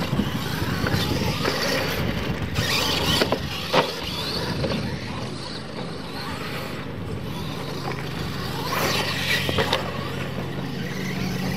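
Two radio-controlled scale monster trucks racing side by side on dirt: motors whining and tyres churning, with sharp knocks as they hit the track's ramps, the loudest about four seconds in.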